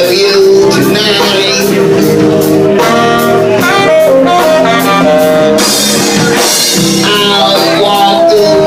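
Live band playing an instrumental passage of a jazzy song, a horn carrying the melody in held notes over drums and cymbals.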